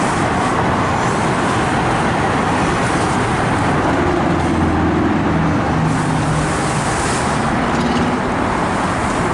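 Steady city street traffic noise, with a vehicle's engine hum coming up in the middle.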